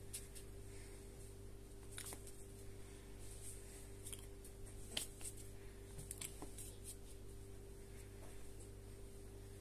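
Hands moving and rubbing together near the microphone, giving a few faint rustles and soft clicks, the sharpest about five seconds in, over a steady low hum.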